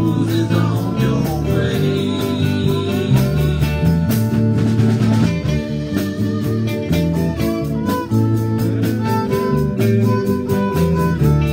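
Live band playing a country-rock cover, with electric guitar, bowed fiddle, bass and drum kit over a steady beat. There is a cymbal crash about four seconds in.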